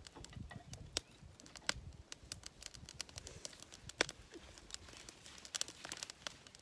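Wood campfire crackling, with many sharp irregular pops and snaps.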